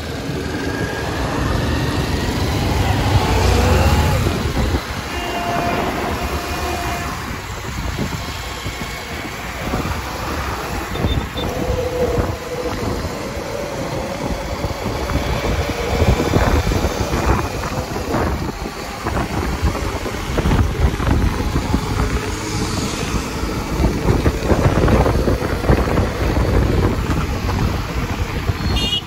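A freight train's open wagons rolling slowly past, their wheels clattering and rattling steadily over the rail joints.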